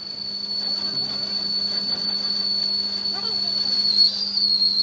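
Metal lathe starting up and turning a steel disc: a loud, steady high-pitched whine over a low hum, the whine wavering briefly near the end.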